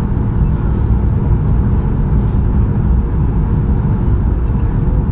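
Steady, loud rumble of a Boeing 737-800 in flight, its CFM56 engines and airflow heard from inside the cabin during the approach, with a faint steady whine over the low roar.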